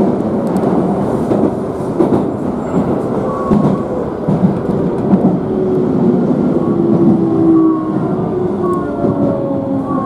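Keisei electric commuter train heard from inside the car, its wheels running on the track with a few knocks. From about halfway through, a whine from the traction motors slowly falls in pitch as the train slows into a station.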